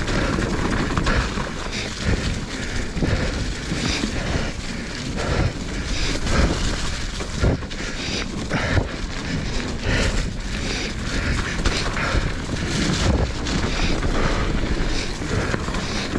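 Commencal Meta HT hardtail mountain bike rolling over a rocky, loose trail: tyre and trail noise with frequent irregular knocks and rattles as the bike hits rocks, and wind buffeting the microphone.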